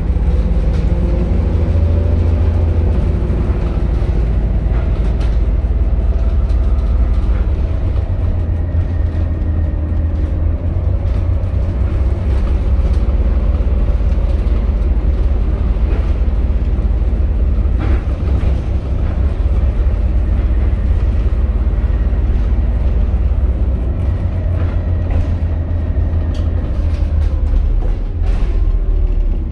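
Volvo B7TL double-decker bus on the move, heard from inside the passenger saloon: its six-cylinder diesel engine and drivetrain make a steady low rumble, with the engine note rising and falling as the bus pulls away and eases off. A couple of sharp knocks or rattles from the bodywork come midway.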